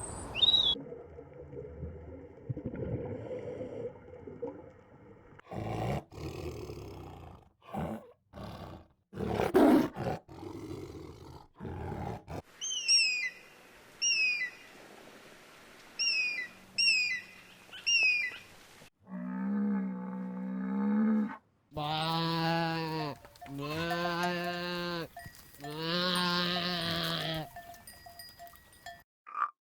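A run of different animal calls, one after another. First come rough, noisy bursts of calls. Then a series of short falling chirps, and near the end four long, low calls held at a steady pitch.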